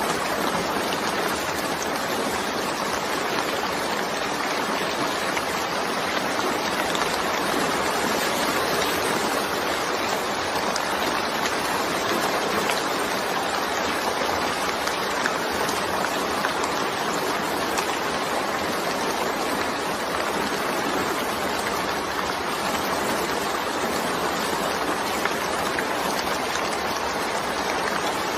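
Steady rain falling, an even, unbroken hiss with no thunder or single loud drops.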